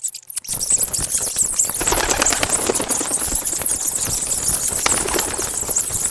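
Sound effect of a swarm of bats' wings fluttering: a dense, rapid flutter, sharpest at the high end, that comes in fully about half a second in.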